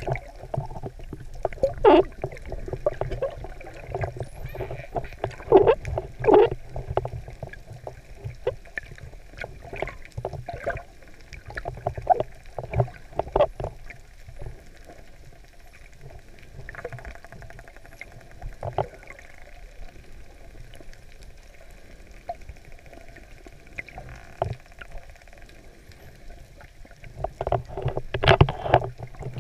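Muffled underwater sound picked up through an action camera's waterproof housing: water sloshing around the camera with a steady low hum, broken by irregular knocks and bumps that are loudest about two seconds in, around six seconds in, and near the end.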